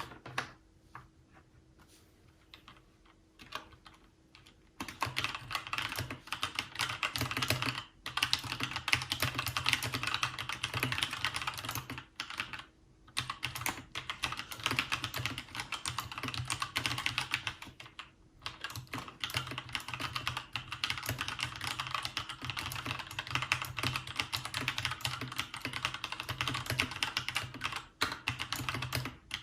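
Fast continuous typing on a Keychron K2 mechanical keyboard with Gateron switches: dense rapid key clicks with a few brief pauses, starting after a few light taps about five seconds in.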